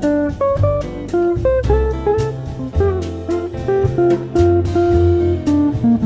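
Background music: a plucked guitar melody over a steady bass line, in a light jazzy style.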